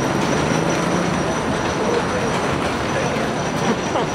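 Wooden roller coaster train running along its track, a steady noise with no breaks and a faint low hum under it.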